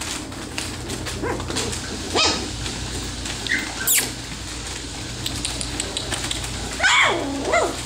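Three-week-old goldendoodle puppies yipping and whimpering: a few short high cries, then two longer cries that bend in pitch near the end, as they learn to bark and play-fight. Newspaper rustles under their paws over a steady low hum.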